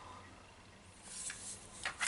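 Quiet handling noise of an electric screwdriver being turned over in the hands, with a couple of short soft rubs about a second in and near the end.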